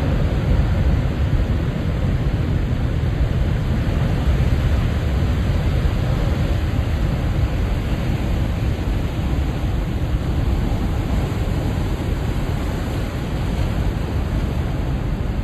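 Big ocean waves surging in a continuous, deep rushing noise, heaviest in the low rumble, with no separate crash standing out; it eases a little over the last few seconds.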